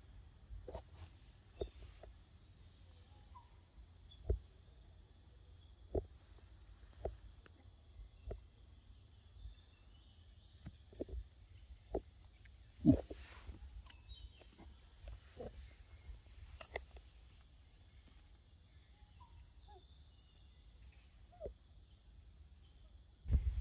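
Steady high-pitched insect drone in two even tones, with scattered soft clicks and taps.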